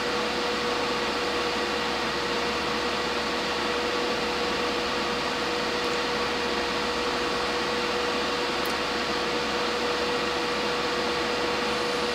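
Hot air rework gun blowing steadily: an even hiss of air with a constant whine, heating the board to reflow solder under a new surface-mount amplifier chip.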